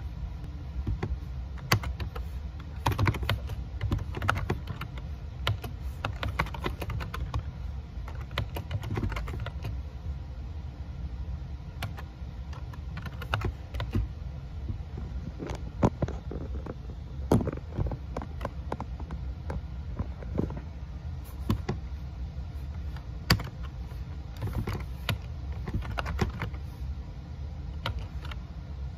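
Typing on a laptop keyboard: irregular keystroke clicks, some in quick runs, others single, over a low steady hum.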